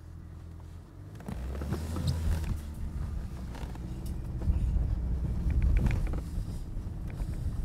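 Wind rumbling on the microphone, swelling about a second in, over the hoofbeats of racehorses galloping on a sand track and jumping a schooling hurdle.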